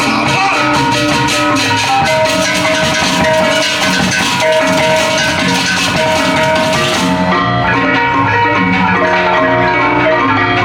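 Balinese baleganjur gamelan playing loudly: gongs and kettle gongs ring out held, pitched notes over drums, with rapid cymbal clashing that cuts off about seven seconds in.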